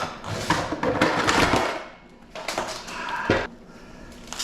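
Irregular clattering and scraping of metal parts being handled and worked, in two bursts with a short pause between them.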